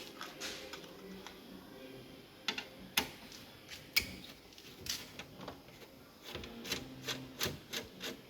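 Sharp clicks and taps from hand tools and small countersunk screws being taken out of a bracket, a few single clicks at first, then a quicker run of clicks near the end.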